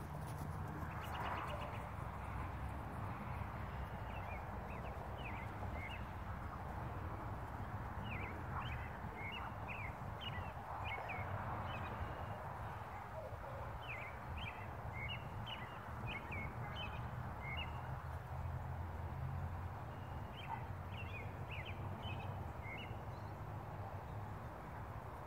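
Wild birds singing in short chirping phrases, in several groups a few seconds apart, over a steady low outdoor rumble.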